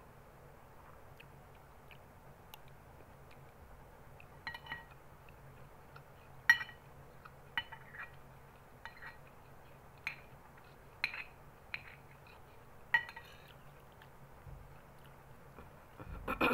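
A metal spoon clinking and scraping against a glass bowl as food is scooped up: about ten short, ringing clinks, spaced a second or so apart.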